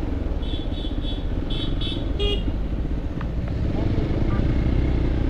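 Motorcycle engine running steadily while riding, with road noise. A string of short high beeps comes in quick succession in the first couple of seconds.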